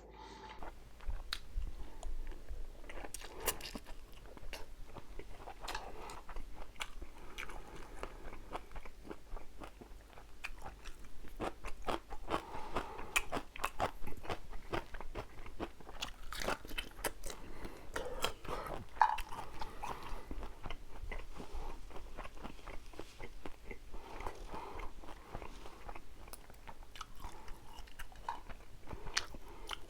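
Close-miked eating: a person chewing and biting braised half-dried pollack and seafood, with wet mouth sounds and irregular crunchy clicks.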